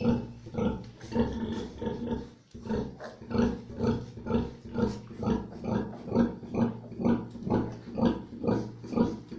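Nursing sow grunting: short, low grunts, irregular at first, then settling after a few seconds into a steady rhythm of about two to three a second. This rhythmic grunting is the sow's nursing call that accompanies milk let-down while the piglets suckle.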